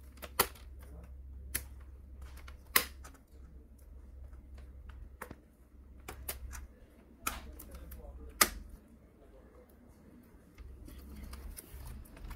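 Sharp clicks and snaps, about seven of them at irregular intervals, as a laptop keyboard is pried loose from the top case's heat-staked plastic rivets while a soldering iron melts them. A low steady hum runs underneath.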